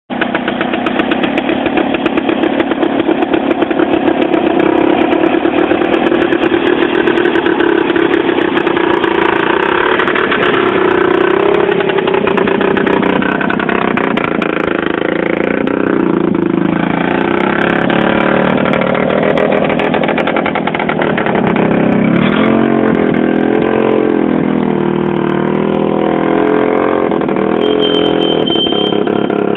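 Small homemade garden tractor's engine running under load as it pulls a trailer full of stones, its speed rising and falling about two thirds of the way through. A short high-pitched tone sounds near the end.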